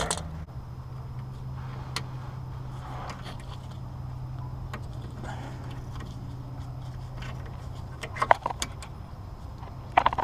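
Small metal clicks and clinks from hand tools working the parking-brake cable clip at a rear brake caliper. They are sparse at first, then come in two short runs near the end, over a steady low hum.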